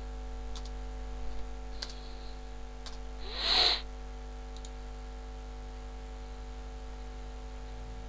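A few separate computer keyboard and mouse clicks over a steady electrical hum, with a short, louder hiss about three and a half seconds in.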